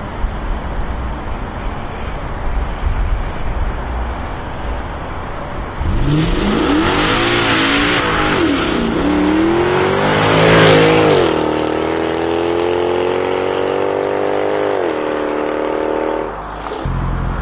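Mercedes C63 AMG's 6.2-litre V8 through an X-pipe exhaust: a rough low rumble at first, then about six seconds in the revs swing up and down quickly and climb to a loud peak with a hiss. The revs then hold steady and high for a few seconds, step down, and cut off near the end.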